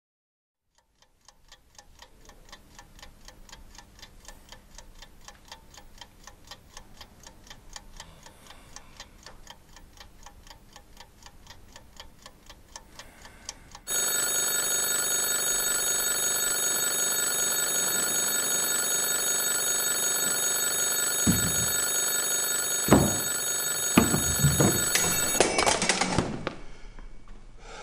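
Alarm clock ticking steadily and faintly, then its alarm bursts into loud continuous ringing about halfway through. Several knocks come in the last few seconds of the ringing, which then cuts off suddenly.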